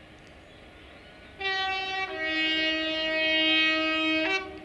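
Diesel locomotive sounding its two-tone horn: a short high note, then a longer low note, then a brief return to the high note before it stops. It is the warning given at a whistle board on the approach to a level crossing.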